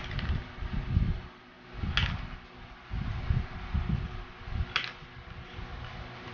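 Scissors snipping through the ribs of a thin plastic basket: three sharp snaps, at the start, about two seconds in and near five seconds, with low bumps and rubbing from the basket being handled.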